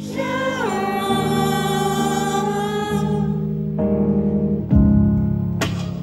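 Live pop music: a held, downward-gliding sung note over sustained chords from a Nord Stage 3 stage keyboard, with a loud low chord struck about three-quarters of the way through.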